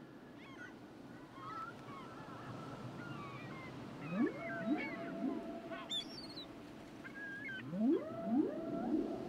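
Killer whale calls: a run of wavering squeals and whistles. About four and eight seconds in come two groups of three quick rising calls, each ending in a held note.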